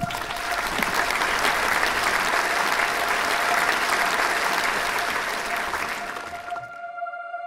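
Theatre audience applauding. The clapping starts abruptly, swells, then dies away near the end.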